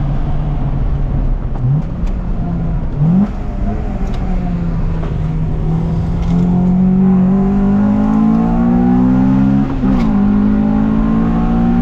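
Honda Integra Type R's four-cylinder engine being driven hard: two quick jumps in pitch in the first few seconds, then the pitch climbs steadily as the car pulls through a gear and drops sharply at a shift about ten seconds in.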